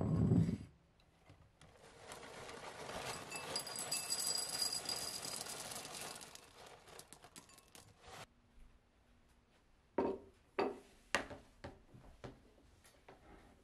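A bowl set down on a countertop with a knock, then fruity ring cereal poured from the box into it: a dense rattling patter that builds and fades over about five seconds. Near the end come three sharp knocks and a few light clicks.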